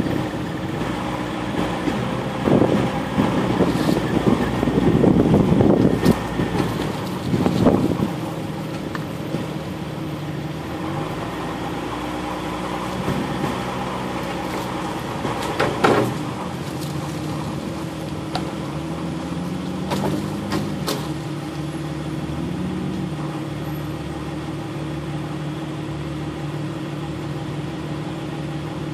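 A vehicle's engine running at low trail speed, heard from inside as it drives a bumpy sandy trail, with its pitch shifting now and then. There is heavier rumbling and jostling from a few seconds in until about eight seconds, and a few sharp knocks from the body over bumps in the second half.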